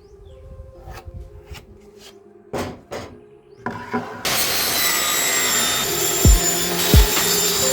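Saw trimming an MDF speaker box: a few wooden knocks as the box is handled, then about four seconds in a loud, steady rasping cut starts suddenly and keeps going.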